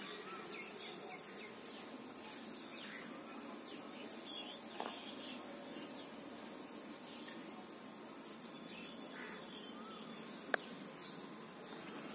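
Steady high-pitched insect trill, with a few faint short chirps and a single sharp click about ten seconds in.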